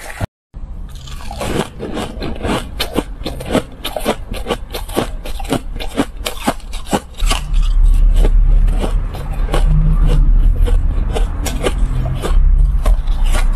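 Crushed ice being bitten and chewed close to the microphone: dense, rapid crunching and crackling, with a short dropout near the start. A heavy low rumble joins the crunching from about halfway through.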